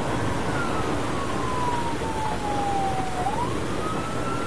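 Police car siren wailing, sliding slowly down in pitch and then swinging back up about three seconds in. It is heard from the pursuing cruiser over steady road and engine noise.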